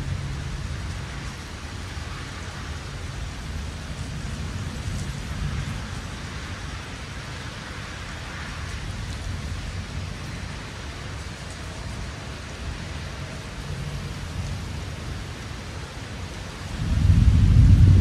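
Rain falling steadily during a thunderstorm, with low rumbling of distant thunder that swells and fades. Near the end a much louder roll of thunder begins.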